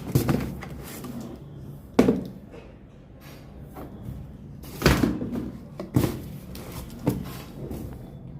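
Supplement packaging being handled: five sharp knocks and taps, irregularly spaced a second or more apart, with softer handling noise between.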